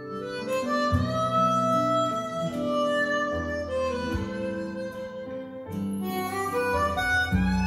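Instrumental intro of a Cantopop ballad: guitar and string accompaniment under a sustained melody line, played back through a hi-fi loudspeaker system.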